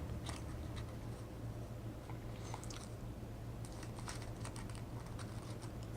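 Faint, scattered light clicks and scrapes of small metal lock-picking tools, tension wrenches and pry bars, being handled and tried in a padlock's keyway, over a steady low hum.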